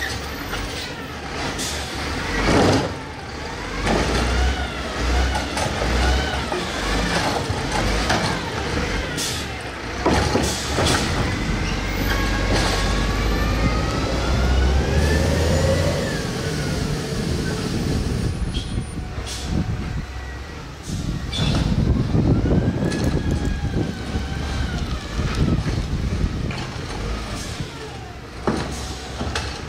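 Garbage truck engine on a Heil Mini Rapid Rail side loader, revved in neutral, its pitch rising and falling again and again. A few short sharp sounds cut in along the way.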